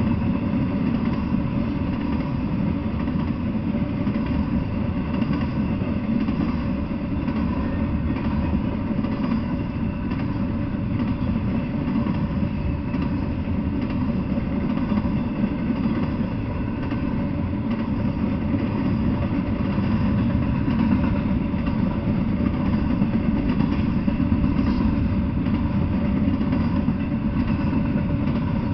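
Double-stack intermodal freight train rolling past, its well cars making a steady low rumble on the rails.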